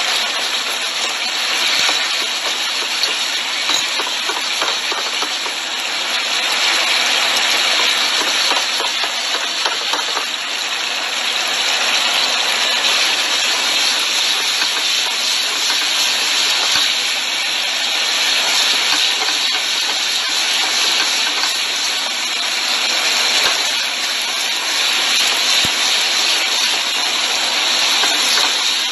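Three-cup chicken wing sauce boiling hard and sizzling in a stainless steel skillet over a high gas flame as it reduces to a glaze: a steady hiss with fine crackling.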